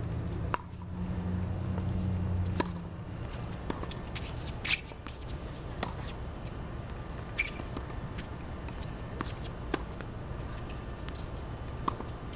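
Outdoor tennis court between points: scattered sharp pops of tennis balls being hit and bounced, one every second or two at uneven spacing. A low hum runs under the first two and a half seconds.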